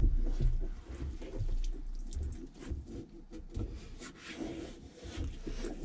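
Shop rag wiping and dabbing up standing water on top of a plastic boat fuel tank: faint, irregular wet rubbing with small ticks.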